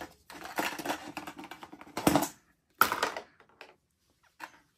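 Rapid clicking and clattering of toy grocery pieces and a wire toy shopping basket being handled, with two louder knocks about two and three seconds in.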